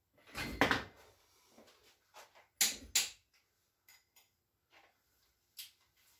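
A few knocks and clunks of tools or parts being handled in a workshop. Two louder ones come about half a second and two and a half seconds in, then lighter clicks and taps.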